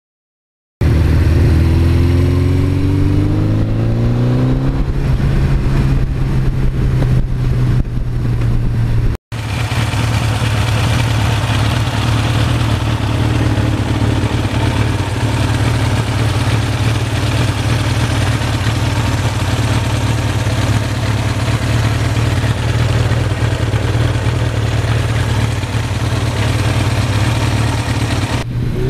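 Suzuki GS1100E's air-cooled inline-four engine running. Its pitch rises for a few seconds as it pulls, then it settles into a steady drone at constant engine speed, with a brief dropout about nine seconds in.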